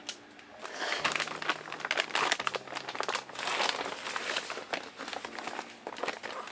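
Large plastic shopping bag crinkling and rustling as it is handled and an object is pulled out of it.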